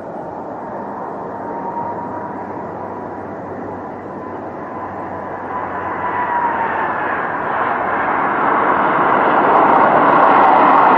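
Twin-engine jet airliner landing: a steady jet-engine rush with a thin whine on top whose pitch drops slightly about two thirds of the way through as the plane passes, the engine noise growing louder toward the end as it touches down and rolls along the runway.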